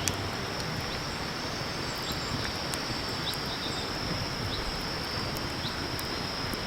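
Steady high-pitched insect trill at a campsite, with faint short chirps now and then over a low outdoor hiss.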